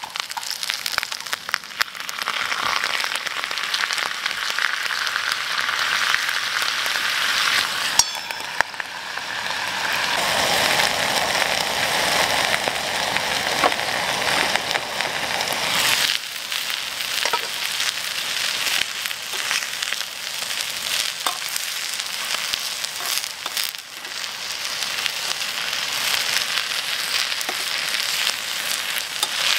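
Sliced onion and carrot sizzling steadily in a frying pan on a portable gas camping stove, with scattered clicks and one sharp knock about eight seconds in.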